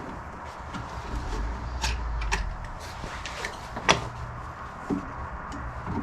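Scattered clicks and knocks of hands working in a car's engine bay, with one sharp click about four seconds in, over a steady low background hum.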